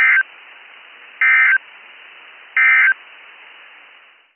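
NOAA Weather Radio SAME digital data bursts: three short, harsh two-tone data squawks about 1.3 s apart over steady receiver hiss. Coming right after an alert's closing line and this short, they are the end-of-message code marking the end of the warning. Near the end the hiss cuts out as the carrier drops.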